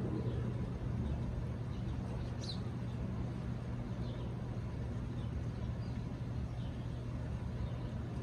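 Steady low background rumble with a few faint high bird chirps, the clearest a short chirp about two and a half seconds in.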